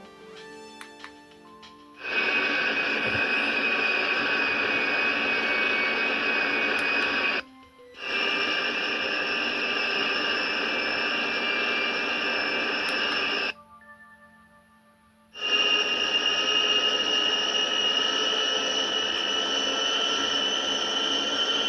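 Sound effects from the built-in speaker of a KITT model fitted with the Mike Lane electronic kit. A few short electronic tones come first. About two seconds in, a loud, steady, jet-like rushing sound with a high whine takes over. It cuts out briefly twice, the second time for about two seconds with only faint tones left, and then resumes.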